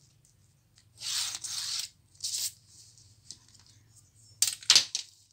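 Fabric rustling as cloth is handled, in three bursts: one lasting about a second, a short one, and a sharper cluster of clicks near the end.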